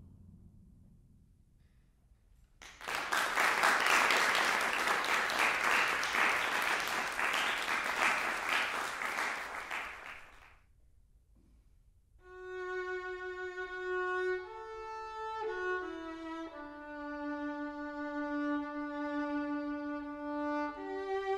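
A French horn's last note fading away in the hall, then the audience applauding for about eight seconds. After a short pause a violin starts playing slow, long-held notes.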